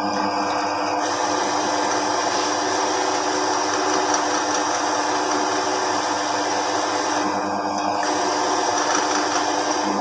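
Wood lathe running steadily while a hand-held turning tool cuts the wooden spinning top, giving a scraping hiss that starts about a second in, breaks off briefly near the three-quarter mark, and resumes.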